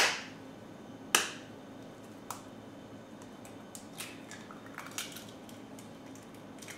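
An egg being cracked open with a kitchen knife over a porcelain bowl: two sharp clinks with a short ring, about a second apart, then a few lighter taps and clicks.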